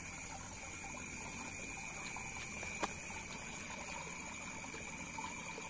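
Steady rush of water flowing in a concrete channel, with a constant high chirring of night insects over it. A single faint click a little before the middle.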